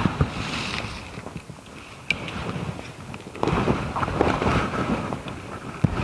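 Wind buffeting the microphone, with rustling; it grows louder about halfway through.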